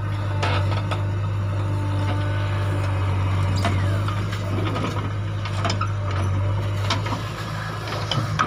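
Diesel engine of a JCB backhoe loader running steadily under load as its bucket digs into soil and swings to load a trolley. Several sharp knocks and clatters of earth and stones are heard over the engine drone.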